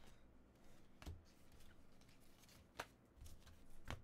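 Trading cards handled and flipped through by hand: faint sliding of card against card, with three sharp card clicks.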